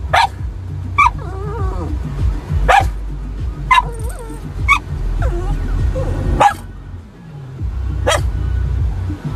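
A dog barking from inside a car at something outside the window: seven sharp single barks at uneven intervals, about a second or more apart.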